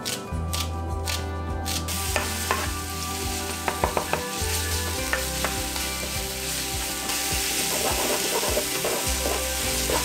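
Chopped green onions sizzling in hot oil in a frying pan as green onion oil is made, with a wooden spatula stirring and tapping against the pan. A few kitchen-scissor snips come before the sizzling starts about two seconds in.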